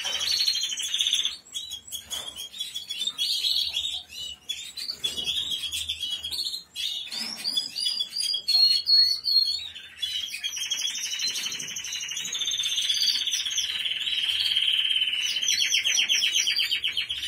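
Canaries and other small caged finches singing together: a busy chorus of chirps and warbling phrases, then, from about ten seconds in, one long, fast trill.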